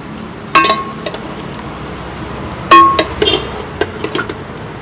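A long metal ladle clinking against a large hammered metal pot as raw mutton pieces are turned in it dry, before any oil or water. Two sharp ringing clinks come about half a second and nearly three seconds in, the second the loudest, then a few lighter taps.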